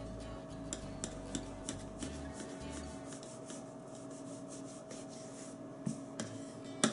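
Kitchen knife cutting and scraping through a mound of floured pierogi dough on a countertop: a run of soft, short scraping strokes, about two to three a second, with a sharper knock of the blade on the counter near the end.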